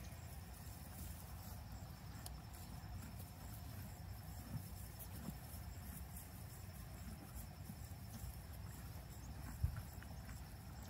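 Insects chirping steadily, a high, evenly pulsing trill, over a low outdoor rumble, with a single thump near the end.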